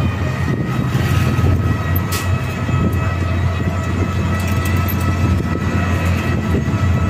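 Wind buffeting the microphone and road rumble from riding an electric bike, steady throughout, with a faint steady high whine over it.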